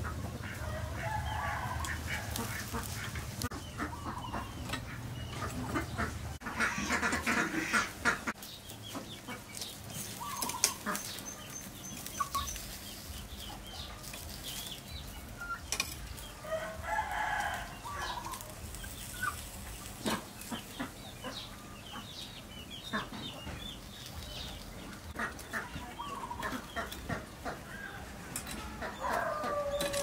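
Chickens clucking and calling at intervals, over scattered light clicks and taps of metal tongs turning food on a wire grill.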